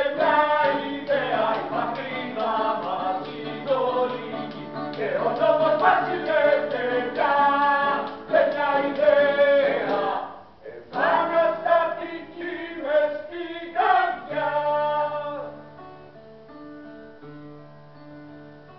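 Live song: several men singing together over a plucked guitar accompaniment. The voices stop about fifteen seconds in, leaving the guitar playing quieter notes on its own.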